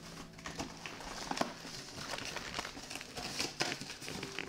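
Cardboard packaging inserts and plastic wrapping being handled and pulled out of a box: crinkling and rustling with scattered short scrapes and knocks.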